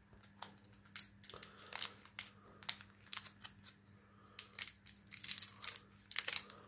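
Foil wrapper of a Duel Masters trading-card booster pack being crinkled and torn open by hand: a stiff pack that has to be prised apart. It makes irregular sharp crackles and rips, starting about a second in and coming thicker in the second half.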